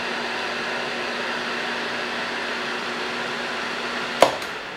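Small axial fan standing in for an HVAC indoor blower, running steadily with a hum. About four seconds in there is a sharp click as the cooling call ends and the circuit opens, and the hum stops as the fan starts to wind down.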